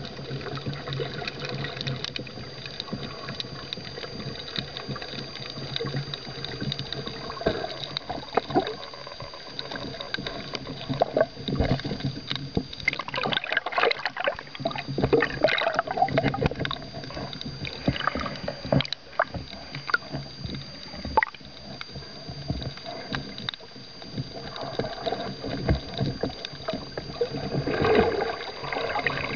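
Underwater sound of a speared barracuda struggling on the spear shaft: rushing water and bubbles with scattered knocks, loudest in a turbulent stretch around the middle and again near the end. A faint steady high whine runs underneath.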